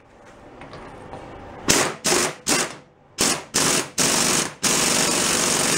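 Air impact wrench hammering in several short bursts, then running steadily from just past halfway, driving the threaded draw bolt of a knockout punch to cut a hole in sheet steel.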